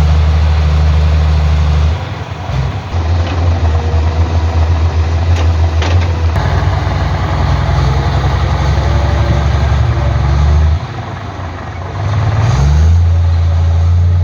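Diesel engine of heavy earth-moving machinery running under changing load, its deep steady note shifting a few times and rising as it revs up near the end. A couple of sharp clicks come about halfway through.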